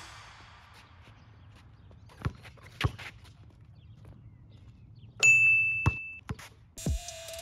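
A basketball bounces twice on an asphalt court, then a single clear ringing ding lasting about a second comes as the shot scores, followed by another bounce. Music comes back in near the end.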